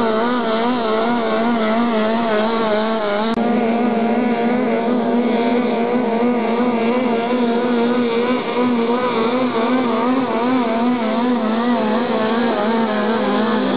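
Racing powerboat engine running flat out at high revs, its pitch wavering up and down about twice a second as the boat skips over the chop.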